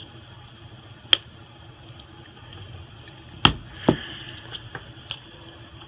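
A few sharp clicks and knocks of small hard objects handled on a workbench, as a phone and repair tools are picked up and set down, over a steady low hum; the loudest pair comes about three and a half seconds in.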